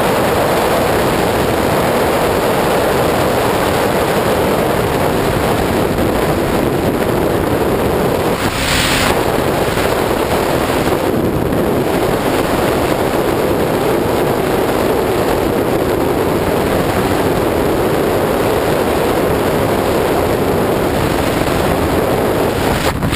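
Steady rush of wind over the microphone of a sport bike travelling at highway speed, drowning out the engine, with a brief high hiss about nine seconds in.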